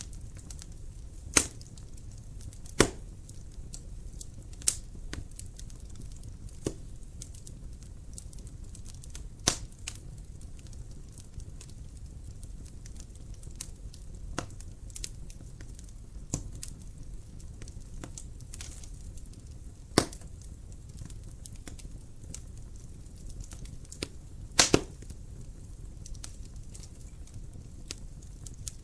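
Wood fire in a fireplace crackling: many small irregular snaps and a sharp louder pop every few seconds, over a low steady rumble.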